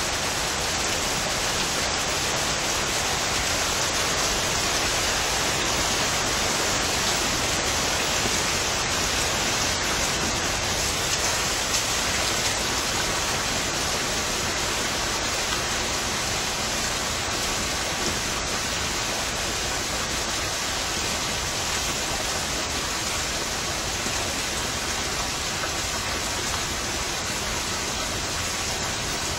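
Steady rain falling: an even, unbroken hiss with no pauses or changes in strength.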